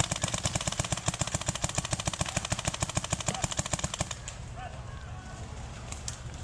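A paintball marker firing a rapid, evenly spaced stream of shots, about a dozen a second, for about four seconds, then a few scattered single shots.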